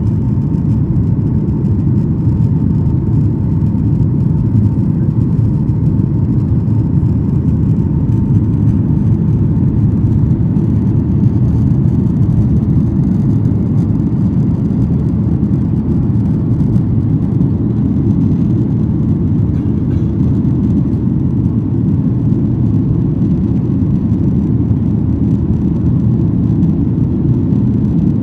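Steady roar of a Ryanair Boeing 737-800's jet engines and rushing air, heard inside the passenger cabin during the climb after takeoff, with a faint steady whine that fades out about ten seconds in.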